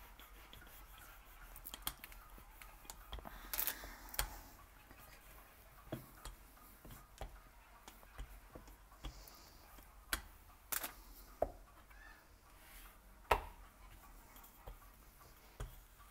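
Scattered light knocks and clicks, with a brief scrape about three and a half seconds in: hands and kitchen tools handling pastry dough on a work surface.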